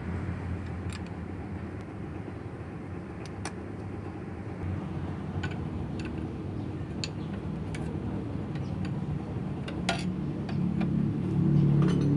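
Scattered light metallic clicks of wrenches working the steel injector fuel-line nuts on a diesel engine. Under them runs a steady low engine hum, which grows louder near the end.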